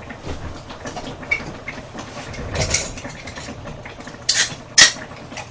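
Small eating and tableware noises, with chewing and light clicks of chopsticks against dishes. Two sharper clicks come near the end.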